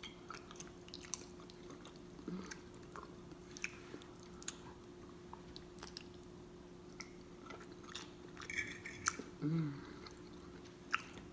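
Close-up chewing and wet lip smacking of a person eating, as scattered soft clicks over a faint steady hum. There is a short voiced sound about nine and a half seconds in.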